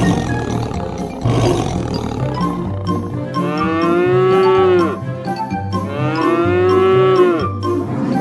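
A cartoon cow sound effect: two long moos, each about a second and a half and falling in pitch at the end, over background music with a steady bass line. A rough, noisy sound comes in the first few seconds, before the moos.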